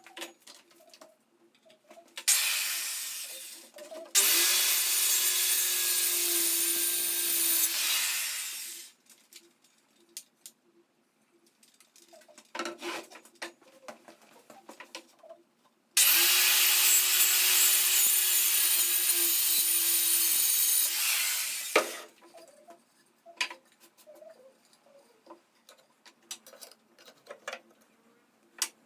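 A power tool running through wood in two runs of about five seconds each, an even rushing noise over a steady motor hum that drops slightly in pitch while it cuts. Light knocks and clicks between the runs.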